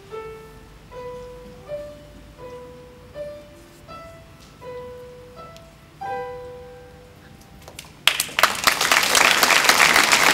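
Upright piano played by a young child: a slow melody of single notes, about one every three-quarters of a second, ending on a final note about six seconds in. About eight seconds in, an audience breaks into applause, louder than the piano.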